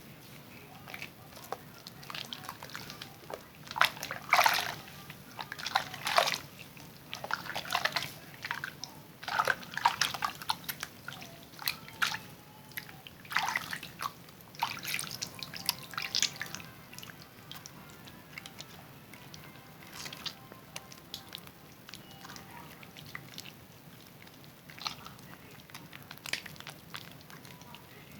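Wet bar of Zest soap being lathered in hands: irregular wet, squishy rubbing sounds, busiest in the first half and sparser and quieter later.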